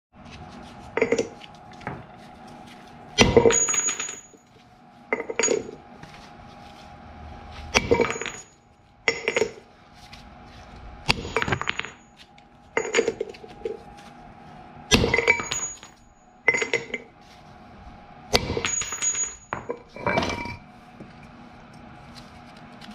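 Steel bearing-press tool parts and sockets clanking and clinking against each other and the hub as the press is fitted to push out a rear wheel bearing. About a dozen separate metallic knocks with a short ringing tone, every second or two.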